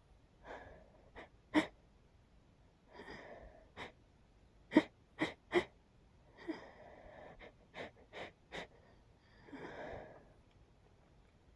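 A person's hitching sneeze build-up: drawn-in, catching breaths alternating with a run of short sharp gasps and stifled little sneezes, the loudest about five seconds in. The sneeze keeps catching, a nose tickle that won't quite come out.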